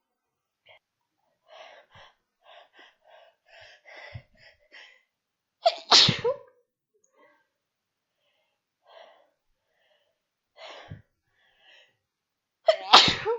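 A woman sneezing: two loud, forceful sneezes, one about six seconds in and one near the end, induced on purpose. A run of short, quick breathy sounds comes before the first, and a few faint breaths fall between the two.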